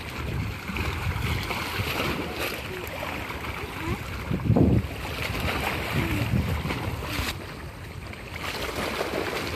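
Wind buffeting the microphone over choppy river water slapping against the bank, with one louder rush about halfway through.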